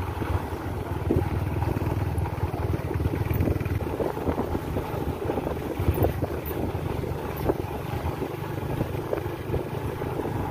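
A motor vehicle running on the move, with a steady low rumble and wind buffeting the microphone.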